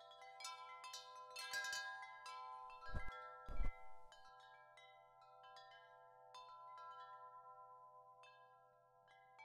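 Chimes ringing in many overlapping, lingering strikes, densest in the first few seconds. Two low thuds about half a second apart come about three seconds in, the loudest sounds here.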